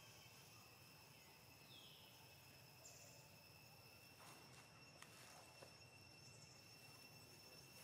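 Near silence: faint outdoor ambience with a steady high insect drone, a couple of faint short chirps, and a few soft clicks in the second half.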